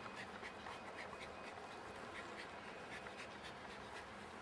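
Faint scratchy rustling with light, irregular clicks as a small dog scrabbles at a large rubber ball and pushes it across artificial turf.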